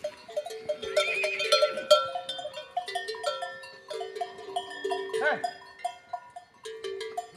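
Livestock bells clanking irregularly as the animals move, with a short animal call about a second in and another about five seconds in.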